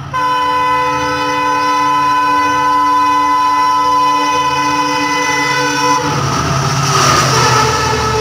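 Electric locomotive of the 12259 Sealdah–Bikaner Duronto Express sounding one long, steady horn blast that cuts off about six seconds in. The locomotive and its LHB coaches then rush past close by, with loud wheel and wind noise on the rails.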